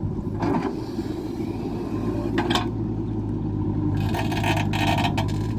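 Heavy machine engine running at a steady idle, a low even hum, with a brief louder hissing noise about four seconds in.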